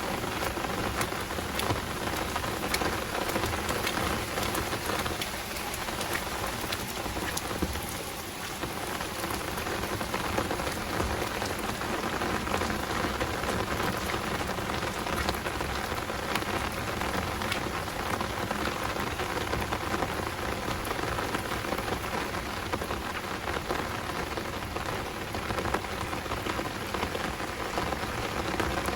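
Heavy rain falling steadily, a dense even hiss with many sharp individual drop ticks.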